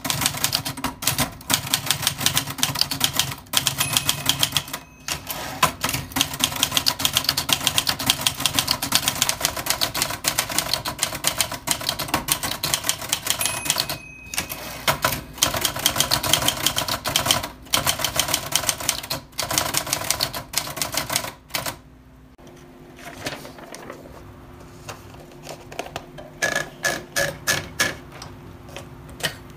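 Old typewriter being typed on: rapid keystrokes clattering in quick runs with short pauses. After about twenty seconds the typing stops, leaving a faint steady hum, and then a few scattered keystrokes return near the end.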